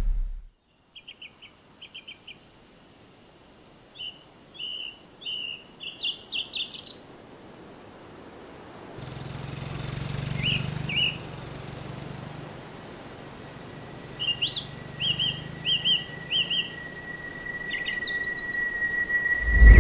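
Songbirds chirping and trilling in short repeated groups over faint outdoor ambience. About halfway through a low rumble comes in underneath, and near the end a steady high tone enters.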